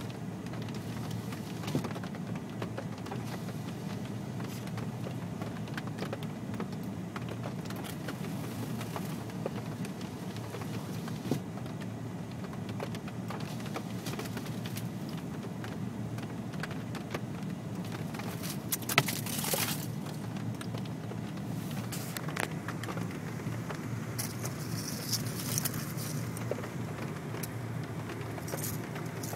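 Ice coating a car's side window cracking and crumbling away as the glass is lowered, with scattered clicks, one louder crunch about two-thirds of the way through and a run of crackling near the end. A steady low cabin hum runs underneath.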